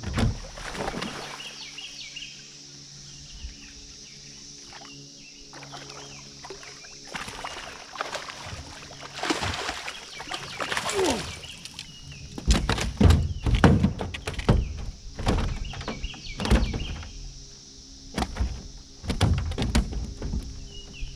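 Repeated knocks and thuds against a small jon boat's deck and hull while a hooked fish is reeled in and brought aboard, loudest and most frequent in the second half, with a sharp knock right at the start. A steady high hiss runs underneath.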